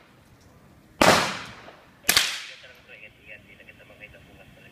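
M16-style 5.56 mm rifle fired twice in single shots about a second apart, each crack with a short echoing tail.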